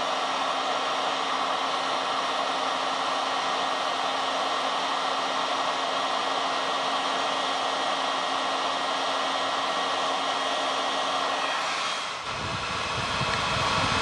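Handheld hot air gun blowing steadily onto a USB Type-C charging connector to melt the solder and seat it on the board. About twelve seconds in the sound changes abruptly and a deeper rumble takes over.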